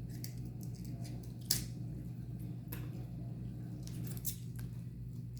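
Close-up eating sounds from a seafood boil of shrimp and crab: wet chewing and smacking with several short, sharp crackles, the loudest about one and a half seconds in.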